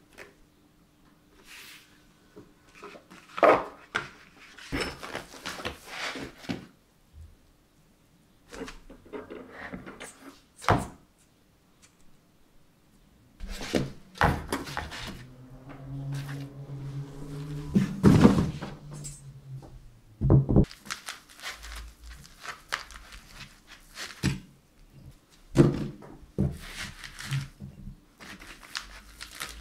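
Fork cartridges and steel fork springs being unpacked and handled on a table: a run of irregular knocks, thunks and clatters as the parts and packaging are picked up and set down. A low steady hum runs for several seconds around the middle.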